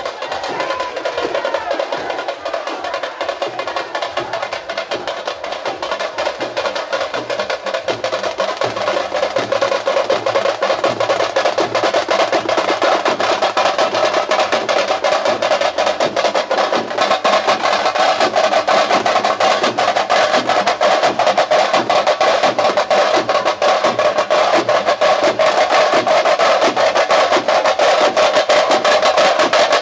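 Tamate frame drums beaten with sticks in a fast, dense, driving rhythm, getting louder about ten seconds in.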